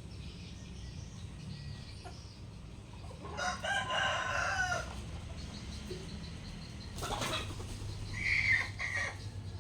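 A rooster crows once, a drawn-out call of about a second and a half, a few seconds in. Near the end there is a brief rustle, then two short, bright whistled notes from the kutilang emas (a bulbul).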